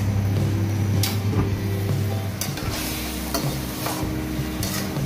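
Chicken livers sizzling in a frying pan while being stirred, with a wooden spatula scraping and knocking against the pan several times. A steady low hum fills the first two seconds.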